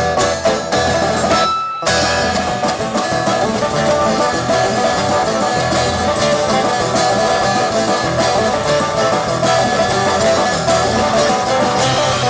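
Live bluegrass string band playing an instrumental, with banjo, mandolin, acoustic guitar, upright bass and drum kit. Short, choppy stop-start hits for the first two seconds, then the full band comes back in and plays on steadily.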